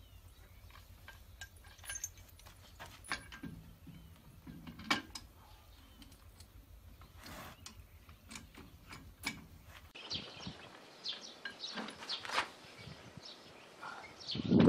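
Scattered metallic clinks and taps of hand tools on steel while an implement is fitted to the rear hitch of a small tractor, with a louder knock near the end.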